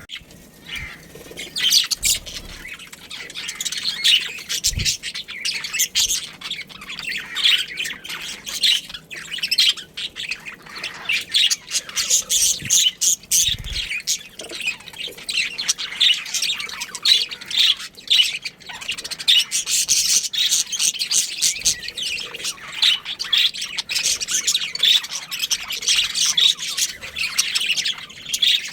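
Many small birds chirping and squawking nonstop, a dense overlapping chatter of short high calls.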